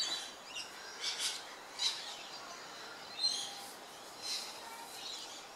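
Birds chirping, with short high calls every second or so over faint outdoor background noise.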